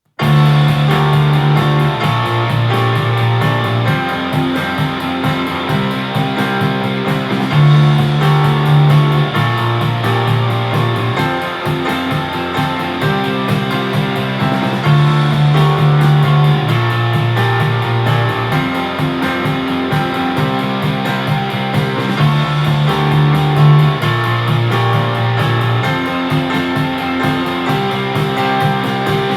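Guitar-based rock music played back through the Edifier PrismaBT 2.1 speaker set (subwoofer and two satellites) as a sound test. A strong bass line holds each note for a second or two.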